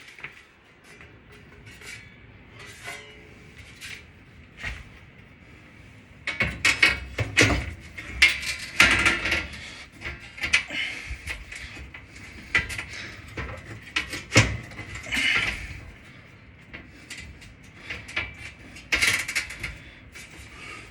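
Sheet-metal oven heat shield clattering, scraping and knocking against the oven's metal interior as it is fitted into place, starting about six seconds in after a quiet stretch.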